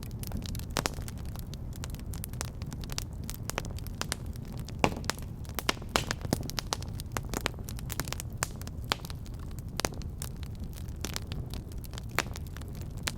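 Wood fire in a fireplace crackling: irregular sharp pops and snaps over a steady low rumble of the flames, with a few louder pops here and there.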